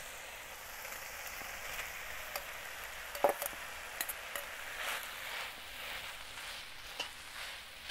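Diced ham and peas sizzling steadily in a hot wok over charcoal, with a few light clicks and scrapes as chopped omelette is tipped in and stirred with a metal spatula.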